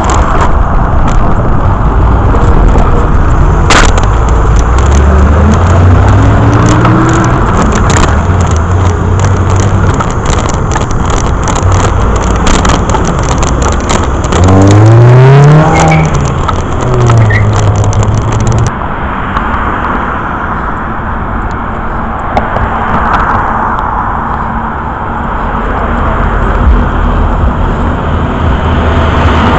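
Wind buffeting a bicycle-mounted camera's microphone over steady traffic and road noise, with scattered clicks and knocks. Car engines pass, and about halfway through the car following close behind revs up sharply, then drops back.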